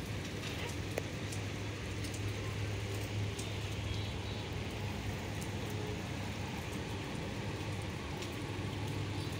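Steady rain falling on a hard, wet rooftop terrace: an even hiss with scattered drop ticks and a steady low hum underneath.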